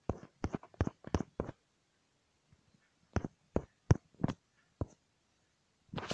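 A run of short, sharp taps: about five in quick succession, a pause of about a second and a half, then about five more at roughly two a second.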